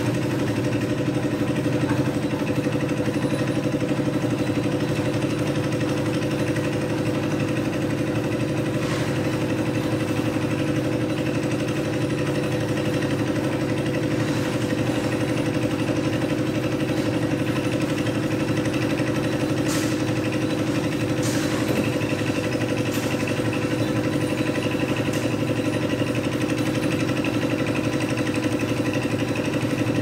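Portable drum concrete mixer's engine running steadily while mixing concrete, with a few short sharp knocks now and then.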